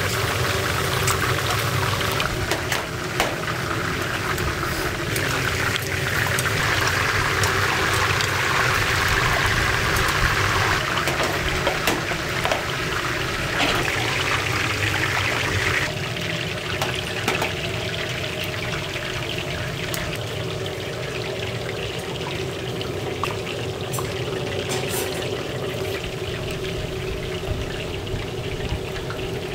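Pork belly sizzling on a hot grill: a steady, crackling hiss, louder in the first half and settling somewhat about halfway through, with small pops and ticks scattered through it.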